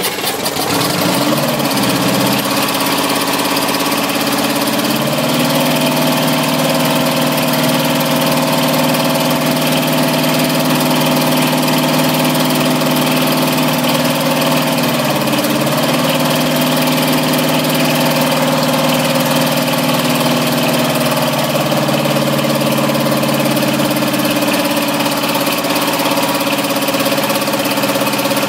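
Detroit Diesel 8V-53 two-stroke V8 diesel running just after start-up, its speed shifting as the fuel rack is adjusted: it picks up about five seconds in, dips briefly midway, and drops back about twenty seconds in. An air noise in the exhaust, which the owner puts down to compression escaping past a broken valve.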